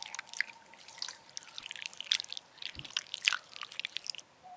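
Wet, squishy slime sound effects: a quick, dense run of sticky clicks and squelches that stops about four seconds in.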